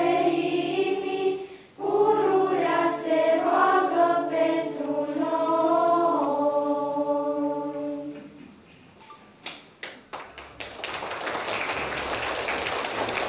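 Children's choir singing a cappella, with a short pause for breath about two seconds in, ending on a held chord that dies away around eight seconds in. Applause starts a couple of seconds later.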